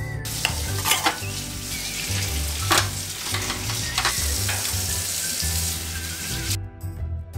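Tap water running hard into a stainless steel sink as steel dishes are rinsed, with a few sharp clinks of dishes and utensils. The water cuts off about a second before the end. Background music plays underneath.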